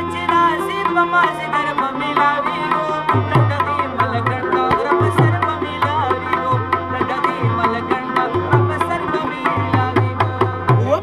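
Live folk music from a small ensemble: a harmonium playing the melody over tabla, whose deep bass-drum strokes keep a steady beat, with a rabab among the instruments.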